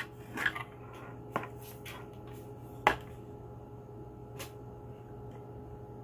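Hard plastic parts of a desk water fountain being handled and fitted together: four light clicks and knocks, the sharpest about three seconds in, over a steady low hum.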